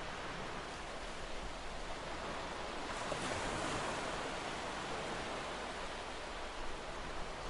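Sea surf washing on the shore, a steady rushing noise that swells a little about three seconds in.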